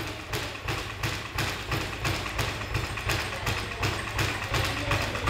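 Background music with a steady pulsing beat, about three beats a second.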